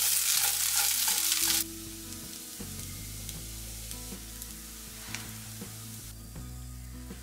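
Bitter gourd stir fry sizzling loudly in a nonstick pan as it is stirred with a silicone spatula; the hiss cuts off suddenly about a second and a half in. After that, only a few light clicks of the spatula as the fry is spooned onto a plate.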